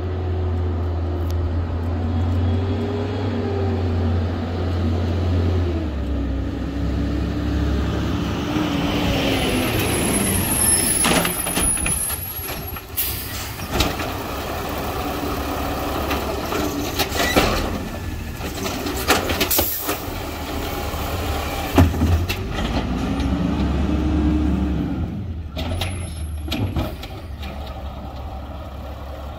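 Engine of an LNG-powered Peterbilt 320 garbage truck running, its revs rising and falling. Several sharp bangs and rattles come in the middle stretch.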